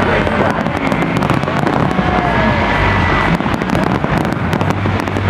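Massed aerial fireworks bursting all at once: a continuous dense crackle of many shells and crackling effects over a heavy low rumble of booms. A few thin gliding tones come through about halfway.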